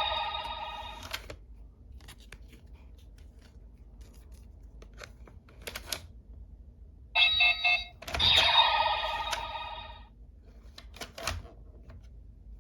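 Kamen Rider Gotchard Driver belt toy sounding electronic tones through its small speaker as cards are tried in it: a tone fading out in the first second, plastic clicks, a short beeping about 7 s in, then a longer ringing tone for about two seconds. The cards being tried are ones that fail to read.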